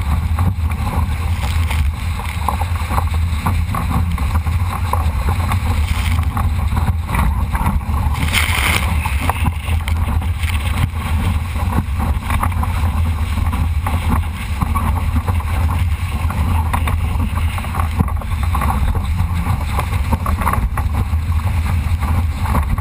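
Wind buffeting the microphone of a GoPro on a Solo sailing dinghy under way, over a steady rush and slap of water along the hull. A brief louder hiss comes about eight seconds in.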